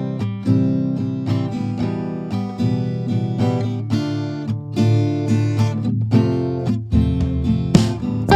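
Background music: strummed acoustic guitar playing a steady rhythm of chords.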